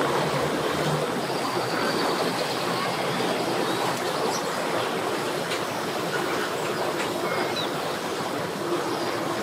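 Boat engine running in gear while the bowrider is power-loaded onto its trailer, its propeller churning the water into a steady rushing wash.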